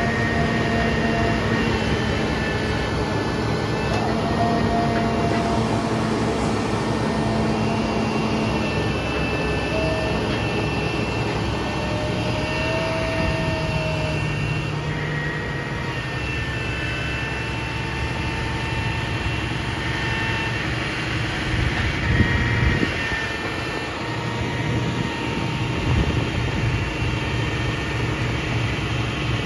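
Ford F650 digger derrick truck running steadily. The Altec boom's hydraulics whine at pitches that shift every few seconds as the auger is lowered toward the hole, with a few knocks about 22 seconds in.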